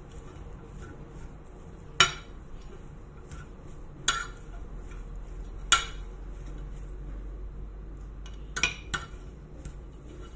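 Metal spoon stirring an onion and parsley salad in a ceramic plate, striking the plate in five sharp clinks spread through the stirring, with soft scraping between.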